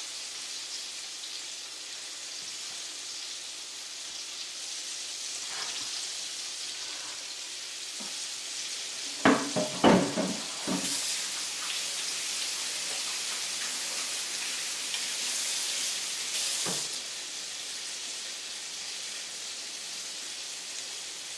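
Chicken frying in hot Crisco shortening in a cast iron skillet: a steady sizzle throughout, with a short cluster of loud knocks about halfway through and one more knock near the end.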